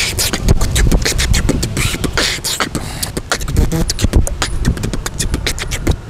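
A man beatboxing into a small handheld microphone: a fast, unbroken run of percussive mouth sounds, deep kick-like thumps mixed with sharp clicks and hisses.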